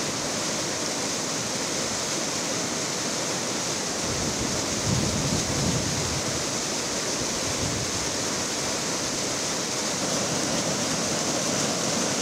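Muddy floodwater rushing and churning around the base of a palm trunk in a flooded plantation: a steady rush of fast-flowing water.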